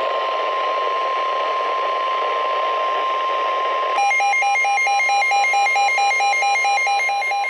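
NOAA Weather Radio warning alarm tone: one steady, loud, high-pitched tone. About halfway through, a second electronic alert joins it, beeping rapidly at about four beeps a second.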